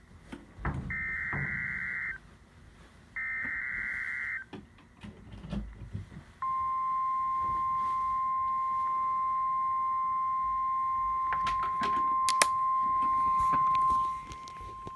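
Emergency Alert System header on a weather-radio warning: two rasping bursts of data tones a little over a second apart, the last two of the three header bursts. About six seconds in, a single steady alert tone starts and holds for about eight seconds. A few sharp clicks of static come near its end.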